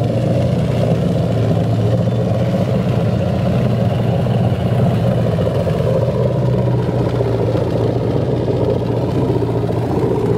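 Indmar V8 inboard engine of a direct-drive ski boat idling steadily, run out of the water on a garden hose, with its exhaust and cooling water discharging through twin transom outlets.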